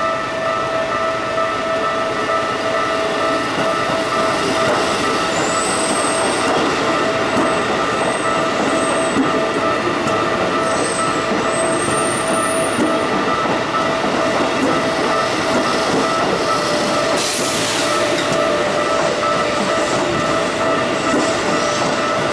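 Train rumbling over a level crossing while the crossing's warning alarm sounds without a break. High, thin wheel squeals come and go around the middle.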